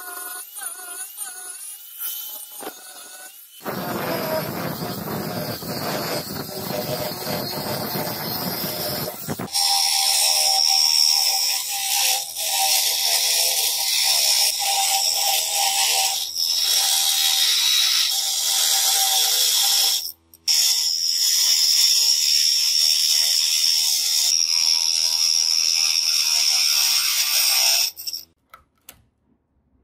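Power grinding wheel grinding a steel knife blank made from bearing steel: a steady, high-pitched grinding that breaks off for a moment about 20 seconds in and stops shortly before the end. It is preceded by a wavering whine from a small disc tool and then a rougher, noisier stretch of grinding.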